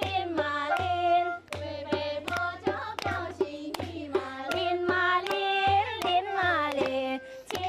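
A song sung by high voices with held, wavering notes over a steady drumbeat.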